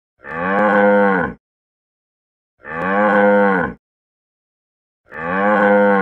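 Cow mooing: three identical moos of just over a second each, evenly spaced, the pitch arching up slightly and dropping at the end of each.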